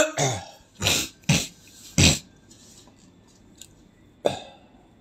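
A person coughing hard, clearing the throat: a run of five short, harsh coughs over about two seconds, then one more a little after four seconds.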